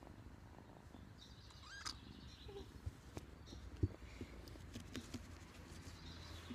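Faint rustling and scattered soft taps as a hand strokes and handles a small kitten on a lap. A brief high chirp comes about two seconds in, and one sharp click about four seconds in.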